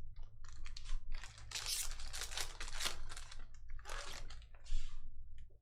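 A trading-card pack wrapper being torn open and crinkled, with the cards inside handled, in a run of rustling, crackling bursts.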